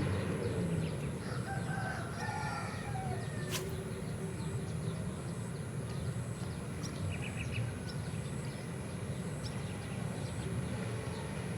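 A rooster crowing, one drawn-out call about a second in, over a steady low background noise and a continuous high whine, with a single sharp click midway.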